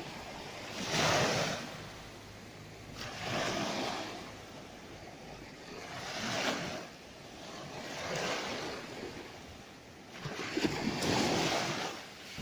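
Small sea waves breaking at the shoreline and washing up the beach in foam, five rushes of surf about two to three seconds apart.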